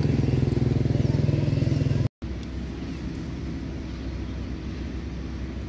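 A steady low engine hum. It cuts out for an instant about two seconds in and comes back quieter.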